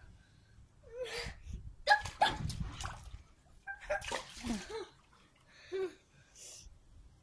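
A man making idle mouth noises: a string of short puffs and blown breaths, with a few brief hums, in separate bursts a second or so apart.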